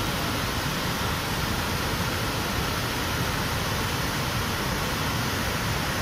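Pykara Falls' cascade, water rushing steadily over a broad series of low rock ledges: an even, unbroken rush of white water.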